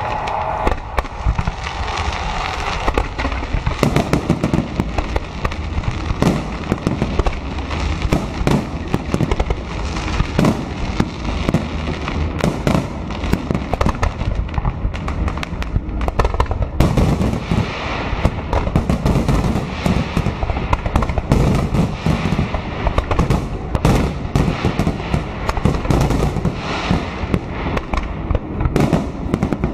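Fireworks salute going off in a dense, unbroken barrage of bangs, many per second, with shells bursting close overhead.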